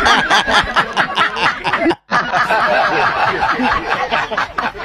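People laughing in repeated bouts of snickering and chuckling, cut by a sudden split-second dropout to silence about two seconds in.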